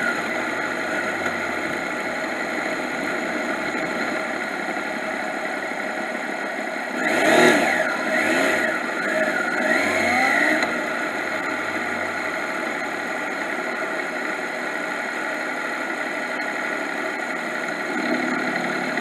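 Yamaha MT-09's inline-three engine running as the motorcycle rides at low speed, with a few quick rising and falling revs about seven to eleven seconds in.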